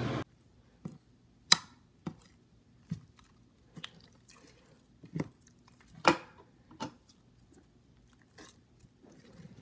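Orange Flarp noise putty squeezed in the hand, giving a string of short, separate squelches, the two loudest about one and a half and six seconds in.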